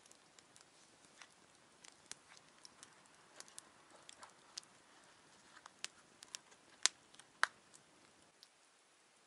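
Wood campfire crackling, with irregular sharp pops and snaps over a light hiss; the two loudest pops come half a second apart late on.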